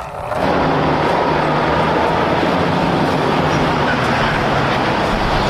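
Fuel tanker semi-truck driving along a road: a steady engine hum under road and tyre noise, starting about half a second in.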